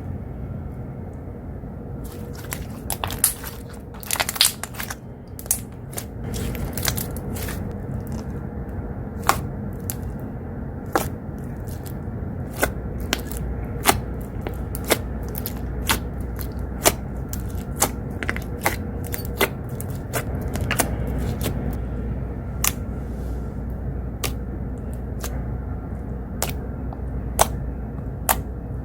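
Slime being kneaded and pressed by hand, making irregular sharp clicks and pops over a steady low rumble of outside noise from an open window.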